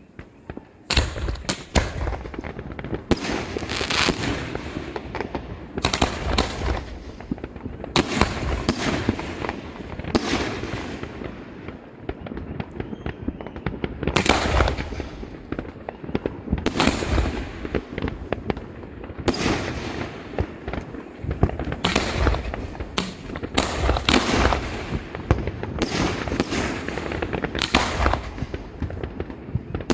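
Fireworks going off in a long series of sharp bangs, one every second or two and sometimes in quick clusters, each followed by crackling.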